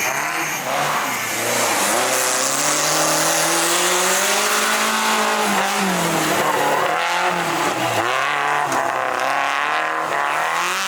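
Off-road 4x4 competition vehicle's engine revving, its pitch rising and falling repeatedly as the driver works the throttle.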